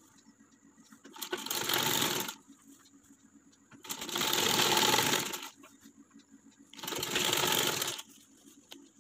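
Sewing machine running in three short bursts, each one to two seconds long with pauses between, as it stitches down a folded waistband casing.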